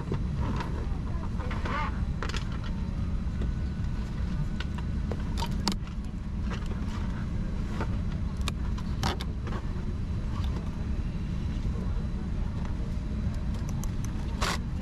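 Boeing 787-10 economy cabin at the gate: a steady low rumble of the aircraft's cabin systems, with scattered clicks and knocks.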